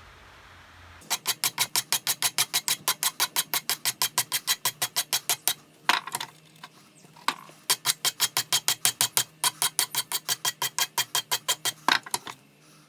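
Rapid back-and-forth hand scrubbing strokes on the antique monkey wrench, about five a second, with a brush or abrasive. They come in two long runs, broken by a short pause with a few scrapes around the middle.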